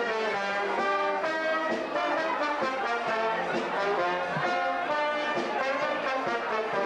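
Brass band playing a tune, trumpets and other brass holding and changing notes together.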